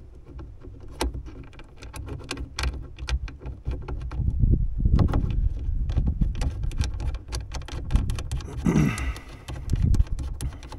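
Small metal clicks and rattles of a Scania toolbox-lid latch and its release cable being worked into place by hand, with low dull knocks and rubbing of handling against the panel, heaviest about four to six seconds in.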